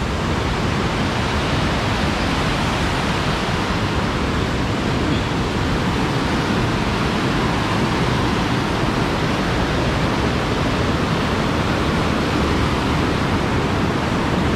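Steady rush of a stream's small waterfall: an even hiss of falling water with no breaks.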